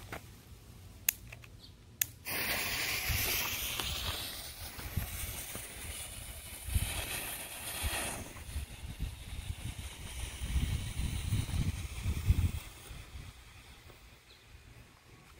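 Two sharp clicks, then about two seconds in a smoke bomb catches with a sudden loud hiss that fades off over the next several seconds, with low rumbling underneath.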